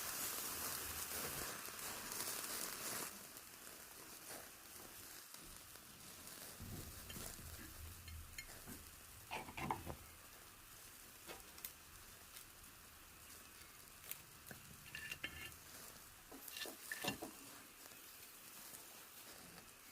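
Food sizzling in a frying pan, which drops away after about three seconds. Then come scattered light clinks and taps of utensils against pans and dishes.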